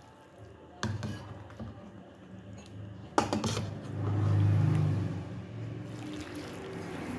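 Broth ladled and poured into a ceramic bowl of food, with two sharp clinks of the ladle, about one and three seconds in. A low rumble swells about four seconds in.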